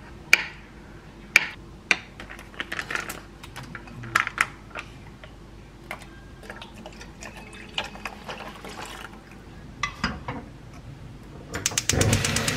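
Kitchen knife cutting a block of tofu on a wooden cutting board, with sharp knocks as the blade hits the board. Then liquid pours from a carton into a pot. Near the end a gas stove's igniter clicks rapidly and the burner catches with a steady rush.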